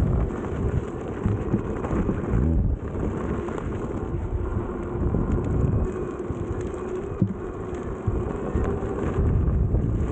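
Wind buffeting the microphone and the tyre of a Veteran Sherman electric unicycle rumbling over a dirt trail while riding: a steady, dense low rumble with no distinct events.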